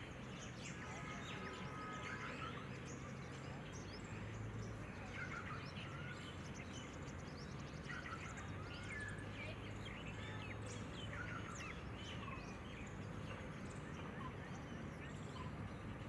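Birds chirping on and off with short, scattered calls over a steady low hum of outdoor background noise.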